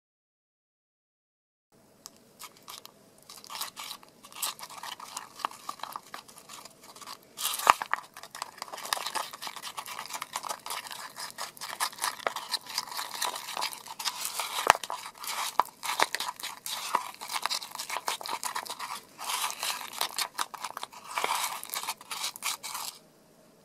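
A thin metal tool stirring thick gypsum plaster paste in a thin plastic cup, with rapid scraping and clicking against the cup's walls and bottom. It starts about two seconds in.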